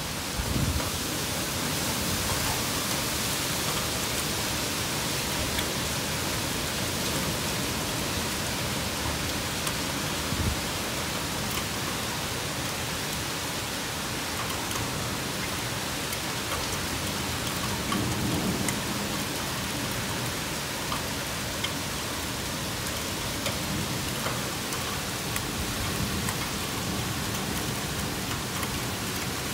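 Heavy storm rain pouring down in a steady hiss, with scattered sharp ticks of drops striking nearby surfaces. A brief low rumble swells about two-thirds of the way through.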